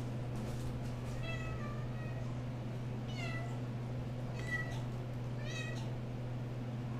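RagaMuffin kittens meowing: four short, high meows a second or two apart, some sliding down in pitch.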